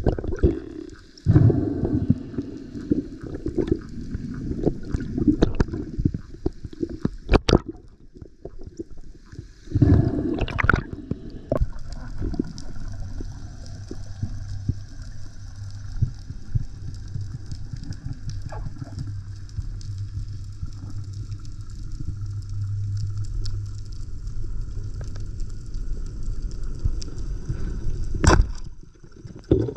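Sea water sloshing and gurgling around a camera during a freedive, in irregular surges, with a low steady hum through the middle and a few sharp knocks, the loudest near the end.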